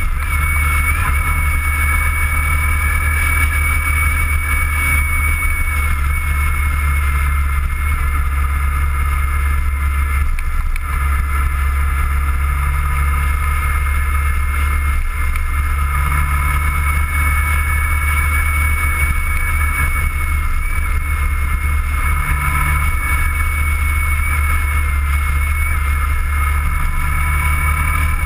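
Motorcycle riding at a steady speed, heard from a camera mounted on the bike: a steady, loud low rumble of engine and wind, with a thin steady whine above it.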